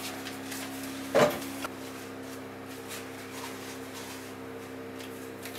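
A single knock about a second in, over a steady low hum made of a few held tones.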